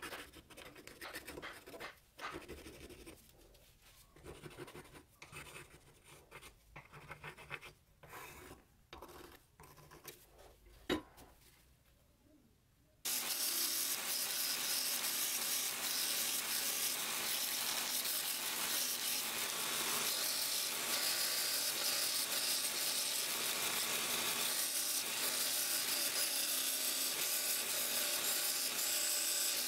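A carpenter's pencil scratches unevenly as it traces an outline on a wooden block, with one sharp click about 11 seconds in. At about 13 seconds a belt sander starts grinding the wooden handle block, a loud, steady sound.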